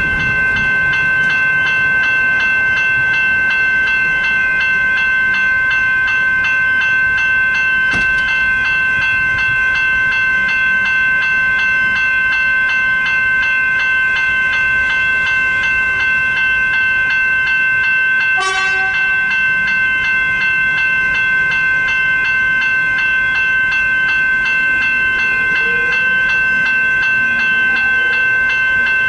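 Level crossing warning bells ringing steadily throughout while an electric suburban train passes. About two-thirds of the way through comes a short horn toot, and near the end the train's motor whine rises in pitch.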